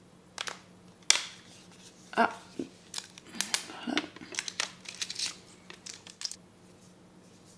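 Plastic back cover of an HTC 7 Trophy smartphone being pried off by hand: a series of sharp plastic clicks and snaps as its clips let go, followed by handling and crinkling of a thin sheet inside the phone.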